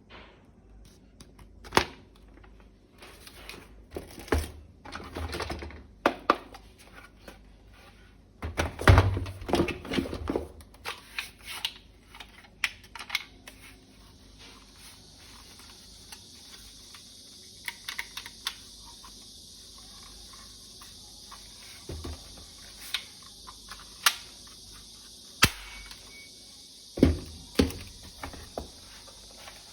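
Irregular clicks, knocks and clatter from a plastic toy assault rifle being handled, with a dense run of knocks about nine seconds in. A steady high hiss comes in about halfway through.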